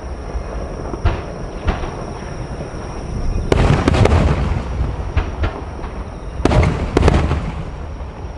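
Large aerial firework shells bursting in a rapid-fire sequence: single sharp reports about a second in and again shortly after, a loud cluster of bangs near the middle and another cluster a little later, over a steady low rumble.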